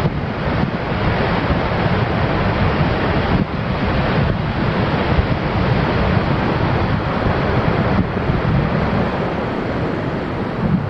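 Steady rushing noise of wind buffeting the camera's microphone, mixed with the roar of the Vøringsfossen waterfall.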